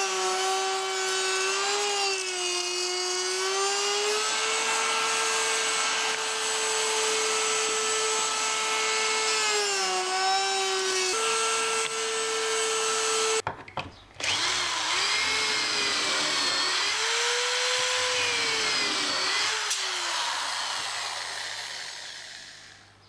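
A power tool's electric motor whining steadily, its pitch sagging and recovering as it works into wood. It cuts out briefly about halfway, then runs again with its pitch swinging up and down, as when a drill bores pocket holes through a jig, and winds down near the end.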